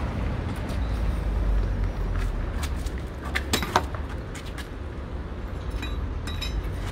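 Steady low rumble of street traffic, with a quick cluster of sharp metallic clinks a little past halfway and a couple of lighter clinks near the end.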